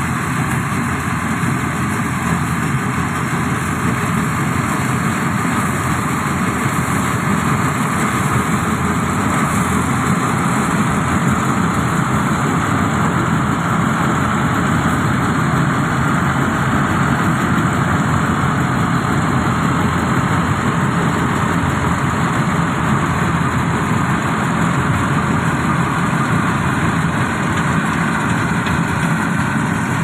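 John Deere 5310 tractor-mounted maize harvester working through dry maize: the tractor's diesel engine and the harvester's machinery run steadily and loudly.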